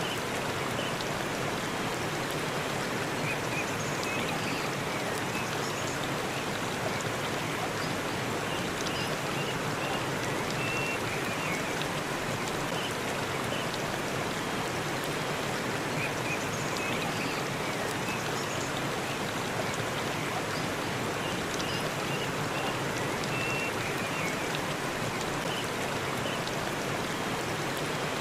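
Waterfall: a steady, unbroken rush of falling water, with faint short high chirps now and then.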